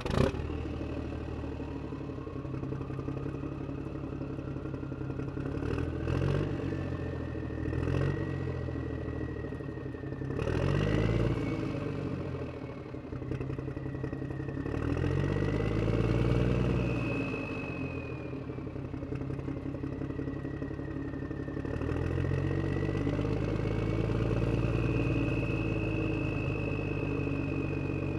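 Vehicle engine catching right at the start, then running and revving up and down several times as the vehicle pulls away, with a thin high whine that rises and falls with the revs.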